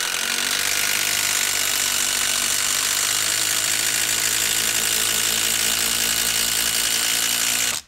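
Hyper Tough cordless impact driver hammering steadily under load as it drives a 10-inch TimberLOK screw into a log, cutting off abruptly near the end once the screw is fully driven.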